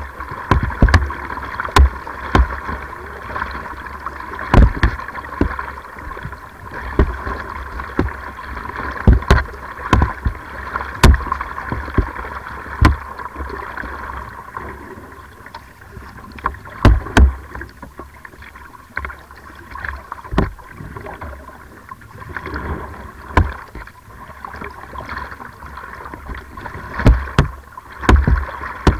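Slalom kayak being paddled hard: the paddle blades catch the water in a run of sharp, irregular splashes and knocks, roughly one to two a second with a short lull midway, over a steady hiss.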